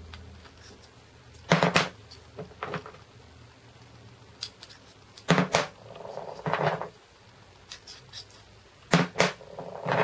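A steel bolt coilgun projectile is dropped three times through an infrared optical trigger. Each drop lands with a sharp double clack, and quieter handling noise follows about a second later.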